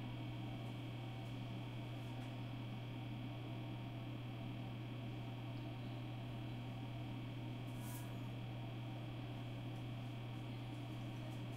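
Steady low electrical hum over faint hiss, with one soft tick about eight seconds in.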